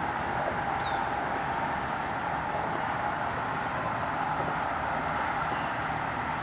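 Steady, unbroken hum of distant road traffic.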